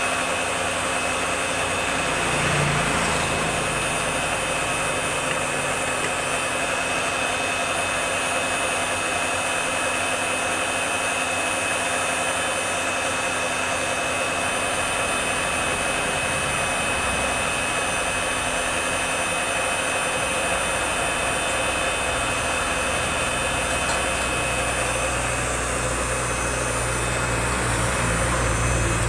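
Electric mixer-grinder motor running continuously at speed, giving a steady rushing noise with a high whine.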